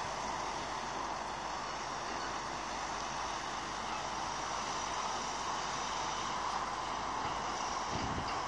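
Diesel engines of a dump truck reversing and a Volvo excavator standing by, heard as a steady engine drone.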